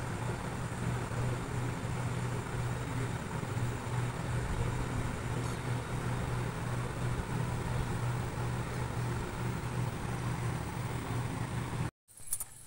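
A steady low mechanical hum over constant background noise, which cuts off abruptly near the end.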